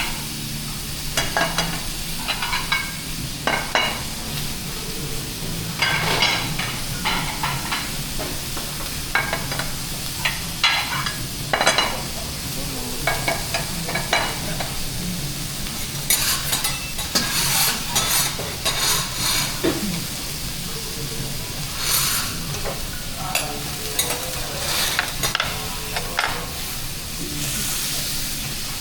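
Food sizzling on a hot steel teppanyaki griddle, with metal spatulas repeatedly scraping and clacking against the plate in an irregular rhythm.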